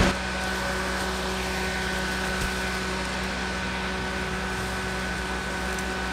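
Several small USB desk fans running together: a steady whir of air through the plastic blades with a constant motor hum and a faint high whine.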